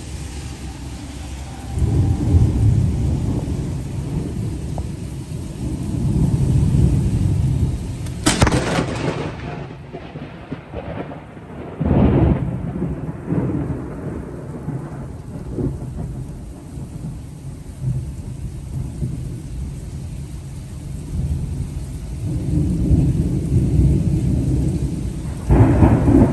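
Thunder rumbling in repeated swells during a thunderstorm, with rain falling. A sharper crack comes about eight seconds in, and another loud peal starts near the end.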